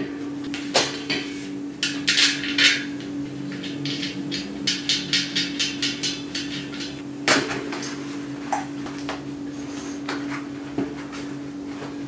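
Bicycle tyre and inner tube being worked onto a spoked aluminium rim by hand: irregular knocks, clicks and rubbing as rubber and rim clatter against the spokes, with a quick run of clicks in the middle and a sharp knock about seven seconds in. A steady low hum runs underneath.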